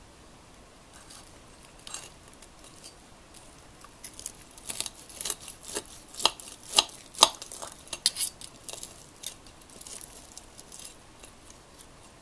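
Table knife cutting through a piece of crisp deep-fried chicken held down with a spoon on a ceramic plate: a run of short crackles and scrapes from the batter, with sharp clinks of metal on the plate, busiest in the middle.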